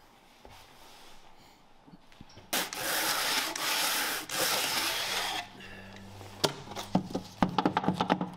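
Wood being rubbed down by hand with a tool in about three long rasping strokes. Then comes a quick run of sharp knocks and taps over a faint low hum.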